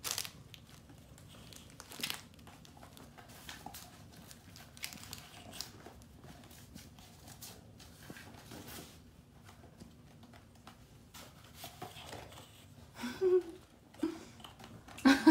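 Crinkle-filled plush pizza toy and its cardboard box rustling and crackling in scattered short bursts as kittens paw and bat at them. Two short, louder voice sounds come near the end.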